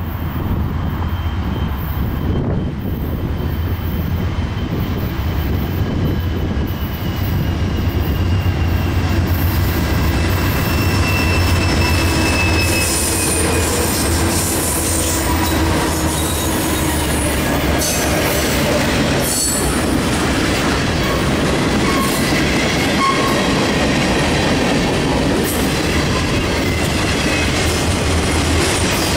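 Norfolk Southern freight train passing close by. The rumble of the diesel locomotives (GE C44-9W and EMD SD70ACU units) builds as they approach and go past about halfway through. Boxcars then roll by with wheels clicking over the rail joints and some thin wheel squeal.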